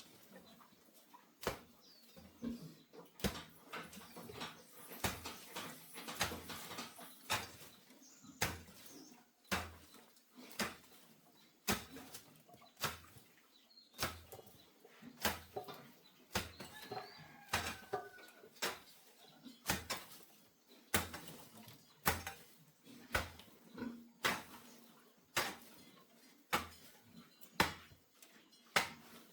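A hand tool striking over and over, with sharp blows roughly once a second, some in quick pairs. A bird chirps faintly about halfway through.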